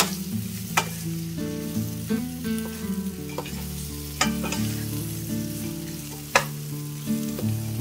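Steel ladle stirring chopped raw jackfruit in hot oil in a stainless steel pan: the pieces sizzle as they are sautéed, with a few sharp clinks of the ladle against the pan. Soft background music with held notes runs underneath.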